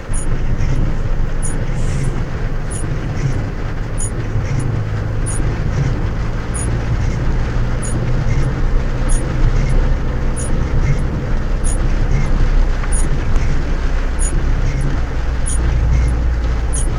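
Inside a car driving on a rain-soaked road: a steady low rumble of engine and road noise, with the hiss of tyres on wet tarmac and light ticking throughout.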